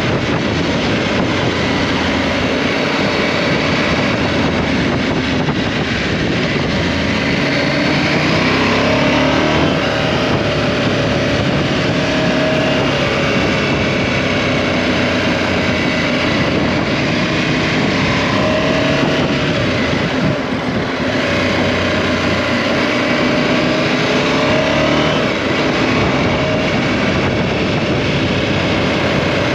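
KTM 790 Adventure's parallel-twin engine running under way, its pitch rising and falling as the throttle opens and closes, over steady wind rush. There is a brief dip in level a little past two-thirds of the way through.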